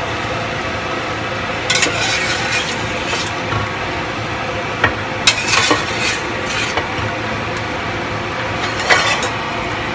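A metal wire skimmer scraping and clinking against a pot as cooked black beans are scooped up and dropped into a pan of rice, in three spells with a few sharp clicks. A steady hum runs underneath.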